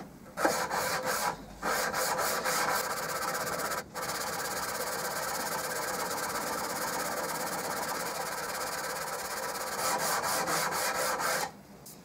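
Flat back of a steel chisel scrubbed rapidly back and forth on the 600-grit side of a diamond sharpening plate wetted with soapy water, flattening the chisel's back at the tip: a steady scraping with two brief breaks early on, stopping shortly before the end.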